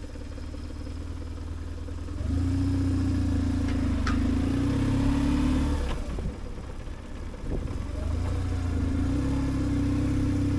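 BMW R1150GS boxer-twin motorcycle engine running while riding. It pulls harder about two seconds in, eases off around six seconds, and picks up again near eight seconds.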